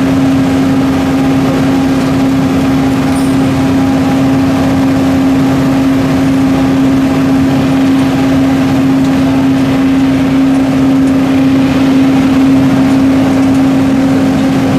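Steady machinery drone with a constant hum that does not change.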